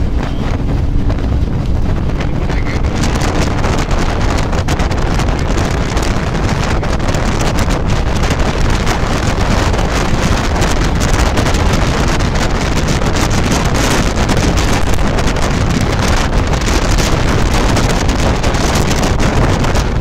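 Wind buffeting the microphone at the open window of a moving bus, with the bus's running and road rumble underneath. The rush gets stronger about three seconds in.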